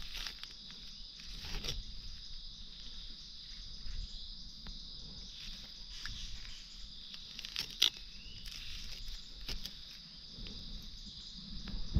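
Steady high-pitched drone of insects, with scattered rustles and snaps over it. The sharpest snap comes about eight seconds in.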